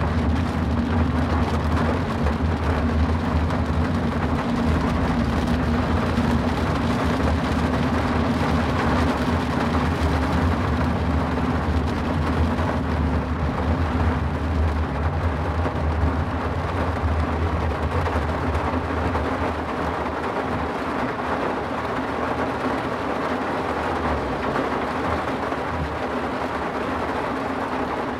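Steady rain hiss with the low rumble of a car driving on a wet road. The rumble eases slightly about two-thirds of the way through.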